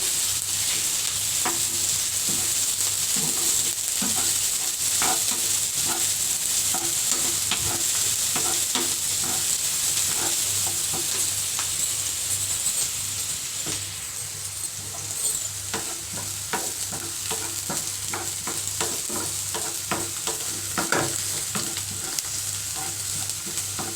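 Chopped onion and ginger frying in hot oil in a pan, sizzling steadily while a spoon scrapes and stirs them with scattered clicks. The onions are cooking until they turn translucent and brown.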